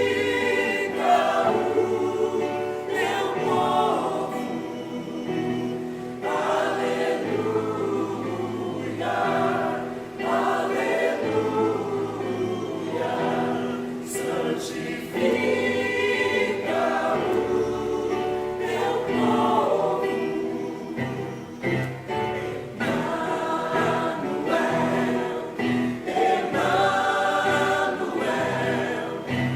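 Church choir singing a hymn in several voice parts, with a steady low accompaniment beneath the voices.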